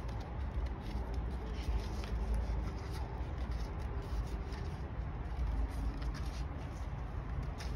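Scissors cutting watercolor paper, with small crisp snips and rustles of the paper, over a steady low hum.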